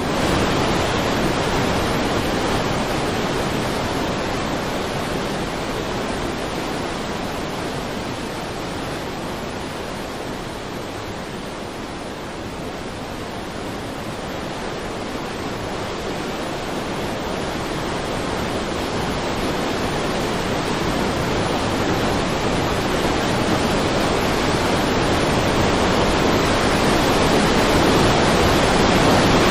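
Fast-flowing floodwater rushing in a steady, loud wash of noise, a little quieter around the middle and building again toward the end.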